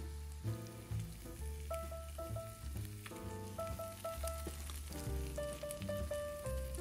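French toast slices sizzling in melted butter in a frying pan, with light crackling, over background music with a melody and bass line.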